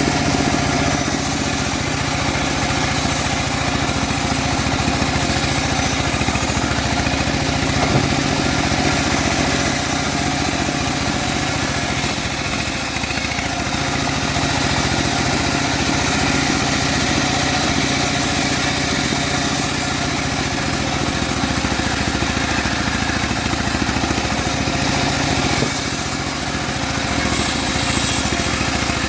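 Homemade engine-driven bandsaw sawmill running steadily while sawing teak, the engine holding an even note with a rasping hiss from the blade that swells and fades.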